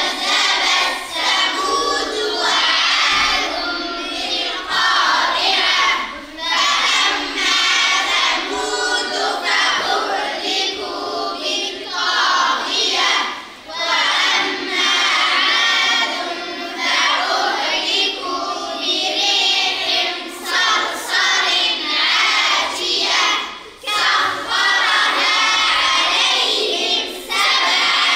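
A group of children reciting the Quran together in a chanted melody, in phrases separated by short pauses for breath.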